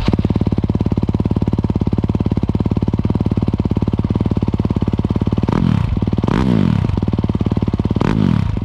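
Yamaha WR250F's 250 cc single-cylinder four-stroke engine idling through a full Akrapovič titanium exhaust, with an even pulse. In the second half the throttle is blipped three times, the revs rising and falling quickly each time.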